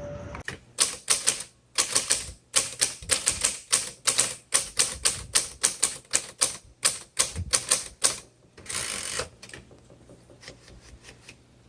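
Manual typewriter being typed on, most likely the 1957 Royal Quiet Deluxe: a quick run of typebar strikes, about three to four a second, then a brief rasping sound near the end and a few faint ticks.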